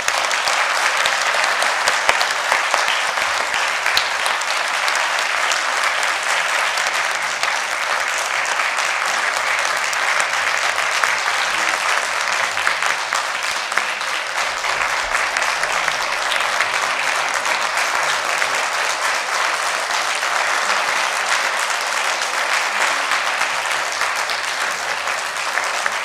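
Audience applauding after a speech: a long, steady round of clapping from many hands, louder than the talk before it.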